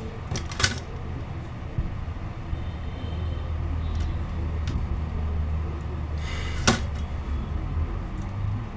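Steady low engine-like rumble, with two sharp clicks, one just after the start and one about seven seconds in.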